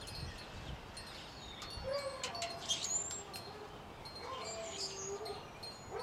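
Wind chimes ringing, with a few bird chirps.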